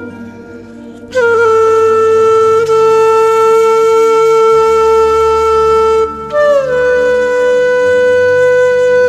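Slow instrumental music led by a wind instrument. It holds one long note from about a second in, breaks briefly, then slides down into a slightly higher note and holds it, over a low sustained accompaniment.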